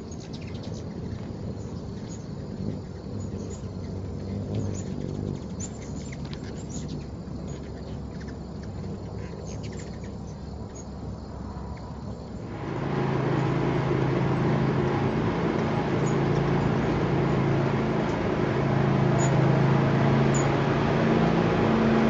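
Ruby-throated hummingbirds: short, high chip calls over a quiet background. About halfway through, a louder low buzzing hum of wings hovering close by takes over, fading in and out as birds come and go.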